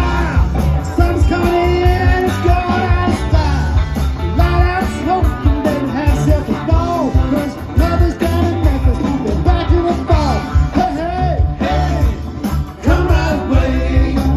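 Live rock band playing electric guitars, bass and drums, with a sung lead vocal over the top, heard through a large outdoor PA.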